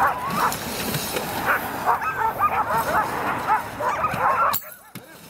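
A team of harnessed husky sled dogs yipping, yelping and howling excitedly all together, many voices overlapping. The noise drops away suddenly near the end.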